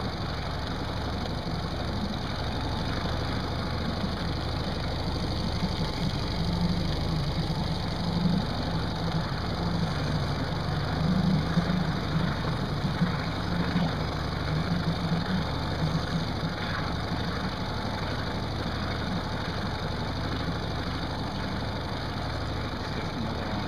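Boat engine running steadily at trolling speed, a low continuous hum that wavers slightly.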